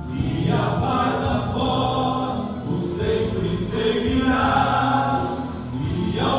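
A group of men singing a Portuguese gospel hymn together, holding and shifting sung notes.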